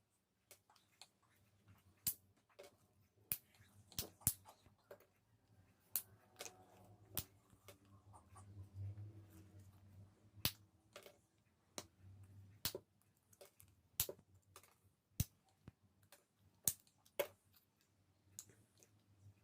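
Irregular sharp clicks and small snaps as the side pieces of a Moulinex blender's worn motor support are broken off by hand, keeping only the middle part. The clicks come one to two a second, with a faint low hum beneath.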